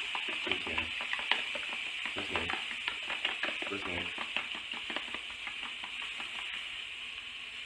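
A fork beating eggs in a plastic container, making quick repeated clicking taps, over the steady sizzle of sausages frying in a pan.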